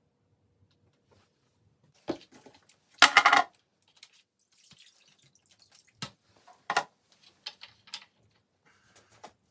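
Handling knocks and clatter as a rusty steel ice saw and plastic containers are set down in and around a plastic tray on a concrete floor: a few sharp knocks, with one louder rattling clatter about three seconds in and two more knocks around six to seven seconds in.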